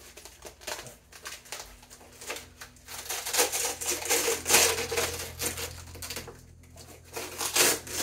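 Clattering and rustling of a costume chest shield being handled: a run of irregular clicks and knocks, busiest about halfway through and again near the end.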